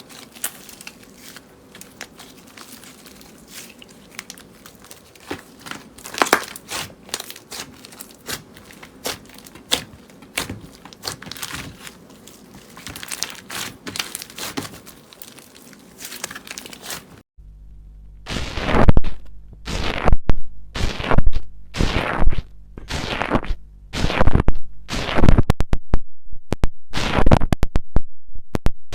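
Slime being handled: soft scattered clicks and crackles, then, after a sudden change partway through, loud crunching strokes repeating about once a second.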